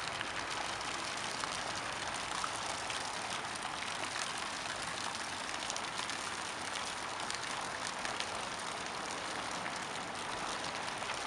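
Steady background hiss with a few faint ticks scattered through it.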